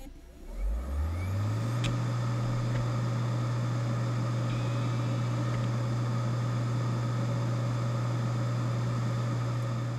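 Opened Seagate Barracuda ATA IV ST340016A hard drive spinning up, its spindle hum rising in pitch over about a second and then holding a steady low hum at its 7200 rpm speed. A loud rushing air sound from the exposed platters runs under it, with a few faint clicks of the heads in the first few seconds.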